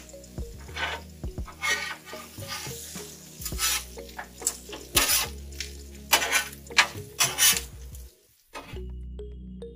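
A metal spatula scraping and clicking on a flat-top griddle in quick, irregular strokes as food sizzles in sausage grease, over background music. The scraping stops about eight seconds in, leaving only the music.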